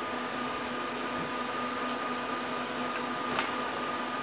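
Steady mechanical hum of running equipment and cooling fans, with a constant thin high-pitched whine over it. A faint click about three and a half seconds in.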